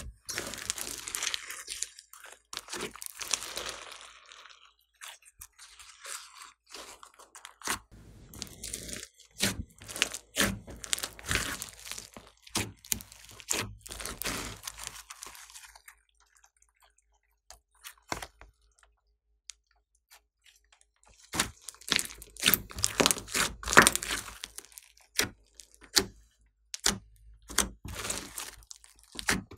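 Hands kneading, pressing and stretching a large mass of glossy slime mixed with foam beads, giving runs of sticky crackling, squishing and sharp popping clicks. The handling stops for a few seconds a little past the middle, then starts again.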